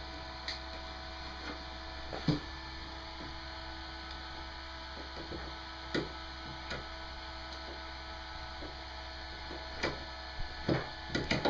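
Steady low electrical hum with a few scattered light clicks and knocks of hands handling wiring and parts.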